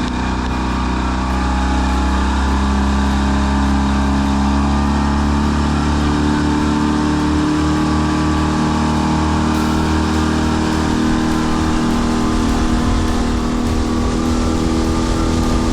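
Fishing boat's engine running steadily, a constant low hum with a hiss over it.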